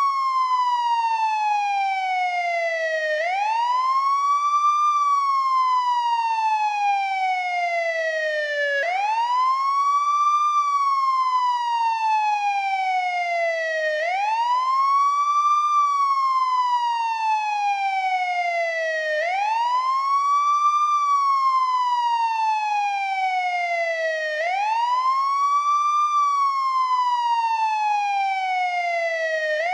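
American police siren in wail mode sounding without a break. Each cycle glides up quickly, then falls slowly, and repeats evenly about every five seconds.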